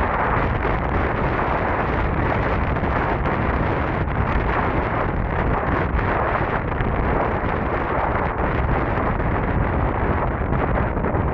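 Wind rushing over the microphone on a fast electric scooter ride, a loud, steady rush that covers any other sound.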